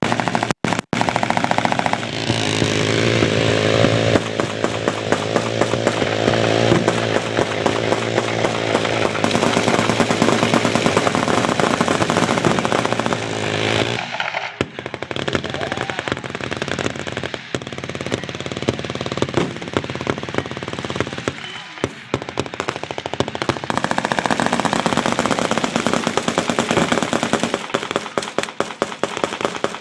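Many machine guns firing at once in a mad minute, the rapid fire of several guns running together into one continuous barrage. About fourteen seconds in the fire thins, and separate bursts and breaks are heard.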